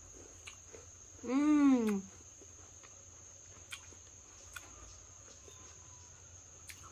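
A woman chewing crunchy raw yacon, with a few faint sharp crunches, and a single hummed "mmm" of enjoyment about a second in that rises and then falls in pitch. A steady high cricket drone runs underneath.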